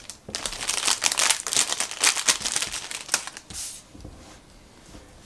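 Clear plastic packaging bag crinkling in the hands as a miniature plastic stepladder is pulled out of it. A quick run of crackles lasts about three seconds, then dies down to faint handling.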